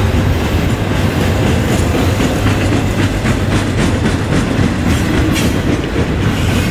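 Double-stack container freight train rolling past: a steady loud rumble of the cars, with the wheels clicking over the rail joints several times a second.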